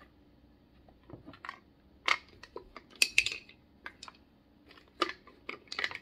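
Wooden puzzle box being worked and tilted by hand, its sliding wooden bars and loose parts giving a scattering of sharp clicks and knocks. The loudest cluster comes about three seconds in.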